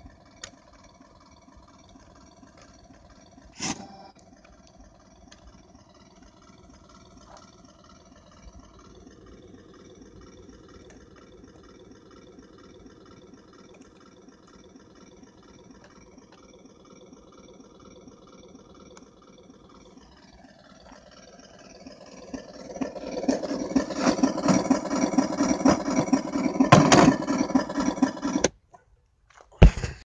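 Toy remote-control army tank running with a faint steady engine hum. About 22 seconds in it grows much louder into a fast, even mechanical rhythm for some six seconds, then cuts off suddenly. A sharp click sounds near the end.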